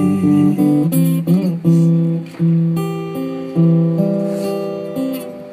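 Acoustic guitar strummed and picked alone, a run of chords each ringing out and fading before the next.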